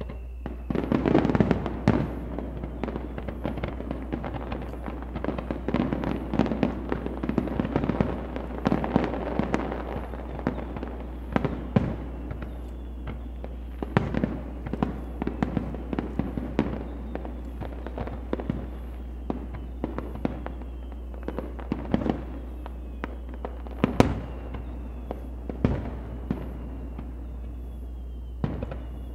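Aerial firework shells bursting: a dense run of crackling bangs over the first ten seconds or so, then single booms every two seconds or so.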